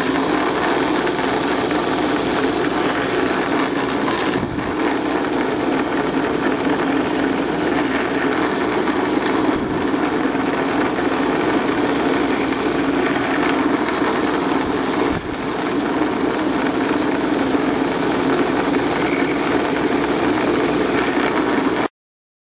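Benchtop drill press running steadily while a very small twist bit drills a row of small holes in a wooden beam. The motor's hum dips briefly about four and fifteen seconds in, and stops suddenly near the end.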